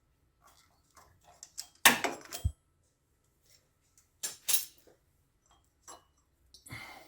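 Metal hand tools and engine parts clinking and clattering as they are handled, in three short clusters with scattered light clicks between. The loudest cluster comes about two seconds in and ends in a dull thud.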